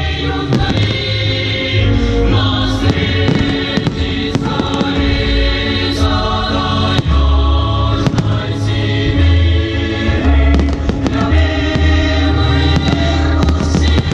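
Fireworks display: aerial shells bursting in a steady stream of sharp bangs and crackles, over loud music with sustained choir-like voices and a heavy bass.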